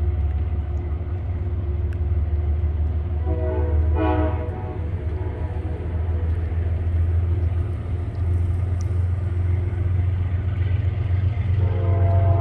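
A train horn sounds for about a second around three seconds in and starts again near the end, over a steady deep rumble.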